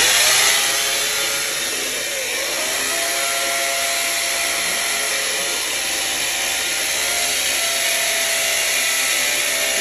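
Electric drill boring into a wall: a loud, steady, grinding hiss that cuts off suddenly near the end.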